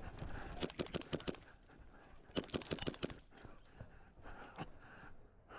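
Airsoft gun firing two short bursts of about six to seven shots each, a couple of seconds apart: quick, sharp cracks.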